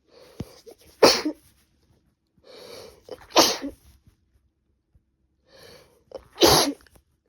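A woman with a cold sneezing three times, each sneeze preceded by a short in-breath.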